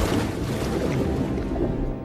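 Orchestral film score playing, with a rushing noise mixed beneath it.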